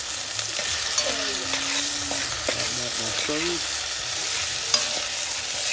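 Tomato, garlic, onion, scallion and seasonings sizzling in hot oil in a pot: a steady hiss with scattered small crackles.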